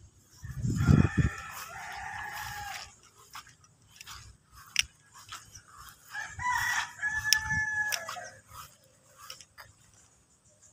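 A rooster crowing twice, each crow about two seconds long, the second starting about six seconds in. A low thump comes about a second in.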